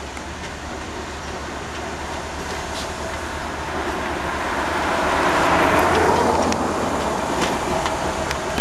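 Small diesel locomotive rumbling steadily as it hauls a caboose and coaches slowly along the track. A car passes close by on the road alongside: its tyre and engine noise swells to the loudest point about two-thirds of the way through, then fades.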